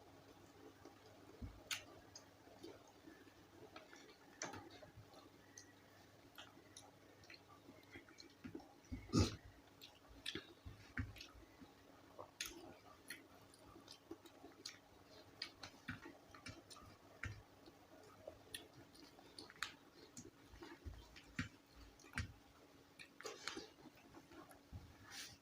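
A person eating close to the microphone: faint chewing with many small wet clicks and smacks, and one louder knock about nine seconds in.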